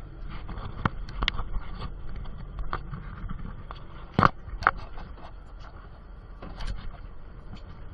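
Steady low rumble of a fishing boat underway, with scattered knocks and scrapes of gear being handled on deck; two loud knocks come close together about four seconds in.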